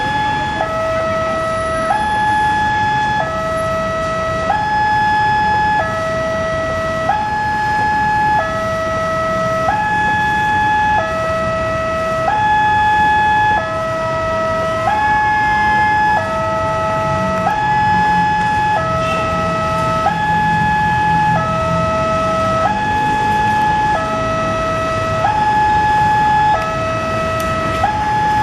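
Electronic railway level-crossing warning alarm sounding a steady two-tone high-low pattern, each note held a little over a second, over a low rumble.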